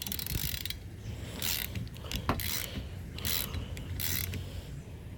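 Ratchet wrench with a 15 mm socket clicking through about five short back-and-forth strokes as it tightens a windshield wiper arm nut.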